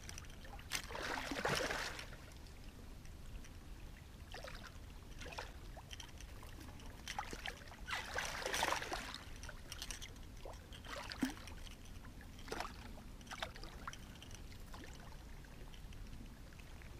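A large hooked catfish thrashing at the water's surface, splashing hard in two big bursts about one second and eight seconds in, with shorter splashes in between and after.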